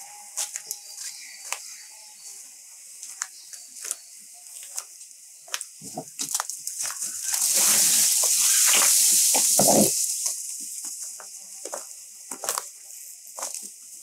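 Light rain falling during a garden walk, heard as scattered irregular ticks and crackles. About seven seconds in, a louder rushing noise builds and lasts about three seconds before fading back.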